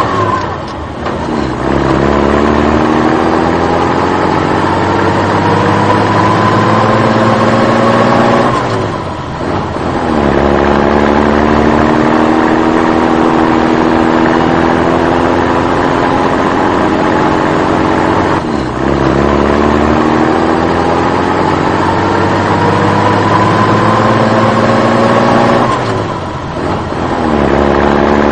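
Dubbed truck engine sound effect running on a loop. The engine note climbs slowly in pitch for about eight seconds, drops away briefly, then climbs again, three times over.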